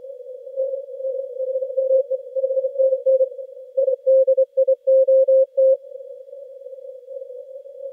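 Morse code (CW) on the 80 m band, heard through a Yaesu FTdx10 transceiver with a narrow CW filter: a hissy band of noise at one pitch with faint keyed signals in it. About four seconds in, a strong station's tone comes through loud and clear for about two seconds, keyed in several dits and dahs.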